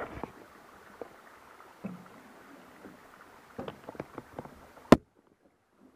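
Boots and hands knocking on the wooden rungs and rails of a trail ladder during a climb down: a few scattered knocks and clicks over a faint hiss. About five seconds in, a sharp click, then the sound cuts off suddenly.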